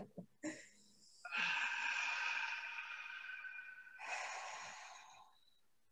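Deep breathing close to a microphone: a long breath of about two seconds that fades away, then a second, shorter breath about four seconds in.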